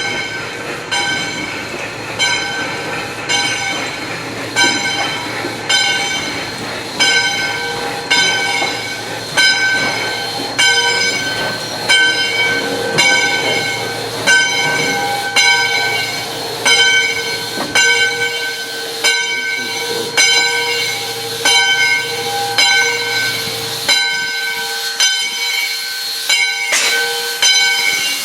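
Steam locomotive bell ringing steadily, about one strike a second, each strike ringing on and fading before the next. Underneath is a steady tone that stops about a second before the end.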